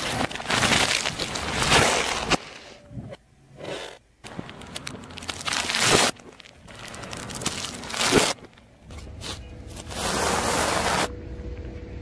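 A car tyre rolling over and crushing a string of different objects one after another, including a bread roll in its plastic bag. Each crunch or squash stops abruptly where the next clip begins.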